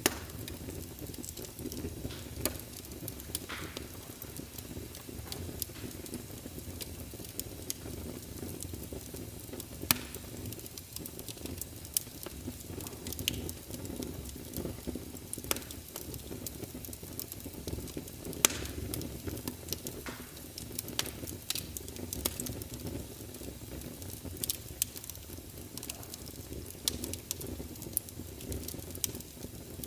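Wood fire crackling, with frequent sharp pops over a steady low rush of rain.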